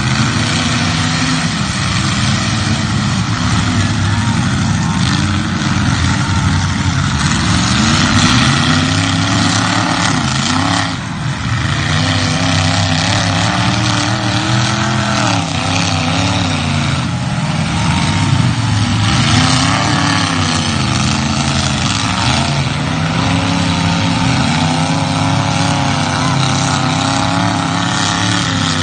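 Demolition derby cars' engines revving up and down over and over, loud and continuous. There is a short break in the noise about eleven seconds in.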